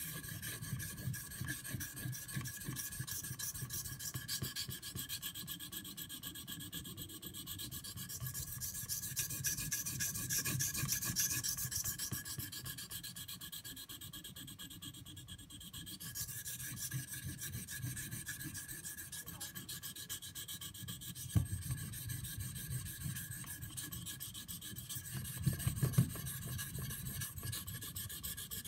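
CPM 3V steel knife blade stroked steadily back and forth across a 1000-grit Shapton Pro waterstone: a continuous scraping rub. A few sharp clicks stand out about two-thirds through and again near the end.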